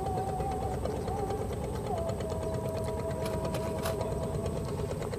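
A small engine running steadily, its pitch stepping down about two seconds in, with a faint tick near the end.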